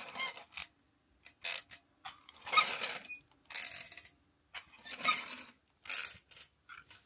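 Plastic pull-along toy dog drawn across a carpet by its cord, its wheel mechanism clacking in short, uneven bursts, roughly two a second, as the wheels turn.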